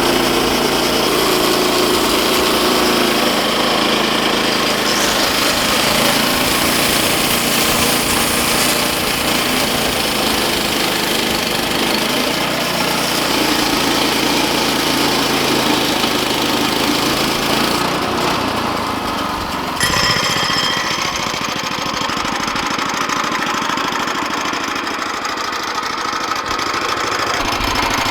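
Small gasoline engine of a Woodland Mills HM122 portable band sawmill running steadily at high speed, driving the band blade through a log. About two-thirds of the way in, the sound changes abruptly and becomes a little quieter.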